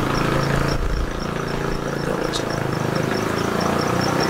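An engine idling steadily nearby, a low, even hum with no change in speed.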